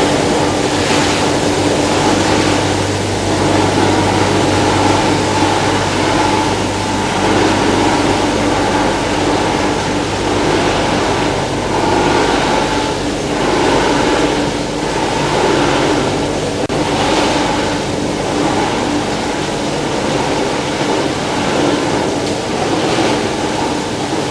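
Plastic film washing line running: a steady machine hum under a loud rushing, water-like noise that swells and eases irregularly.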